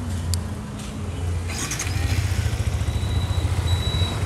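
Yamaha MT-15's 155 cc single-cylinder engine is started about a second and a half in and settles into a steady, low, pulsing idle, freshly filled with new oil.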